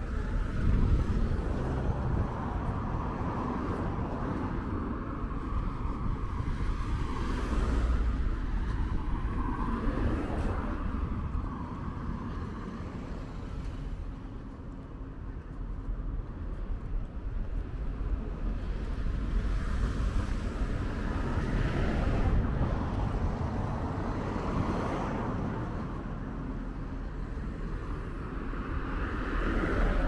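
Road traffic: cars passing by one after another, each swelling and fading, over a steady low rumble.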